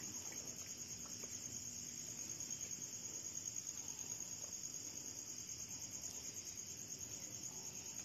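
A steady, high-pitched chorus of insects trilling, a continuous fine pulsing buzz with no breaks.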